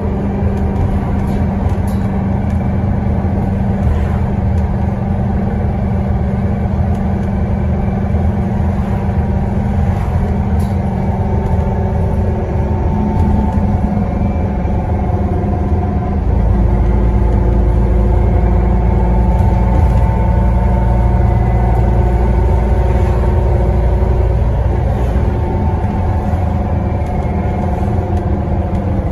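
Scania N94UD double-decker bus heard from inside while under way: the engine running with a loud whine from the differential over it. The deep engine rumble gets louder about halfway through as the engine pulls harder.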